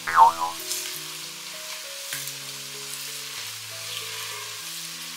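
Oil sizzling steadily as onions, green chillies and freshly added ginger-garlic paste fry in a non-stick pot, with a silicone spatula stirring through them and a louder burst right at the start. Soft background music with sustained notes plays underneath.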